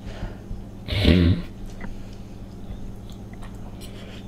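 A person eating spaghetti: a short vocal sound about a second in, then faint chewing and a few small clicks over a steady low hum.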